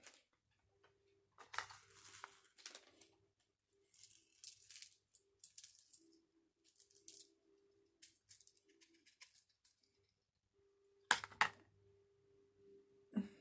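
Hands handling a squishy craft kit: intermittent rustling and crinkling of packaging, with two sharp clicks about eleven seconds in.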